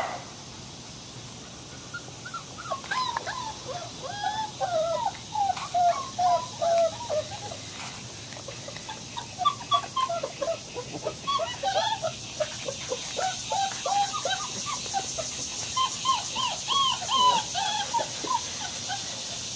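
German Shepherd–Labrador mix puppies whining and whimpering: strings of short, high, falling whines in three runs with brief pauses between.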